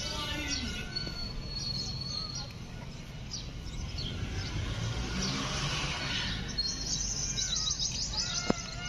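Small birds chirping in short high calls, with a quick run of chirps about seven seconds in, over a low steady outdoor rumble; a single sharp click near the end.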